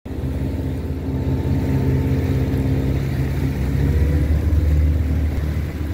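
Fishing boat's engine running steadily underway, a low even drone.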